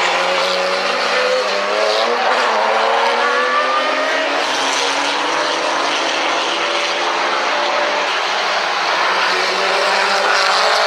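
Several race cars' engines running past as the cars pass through a corner, overlapping engine notes climbing in pitch as they accelerate.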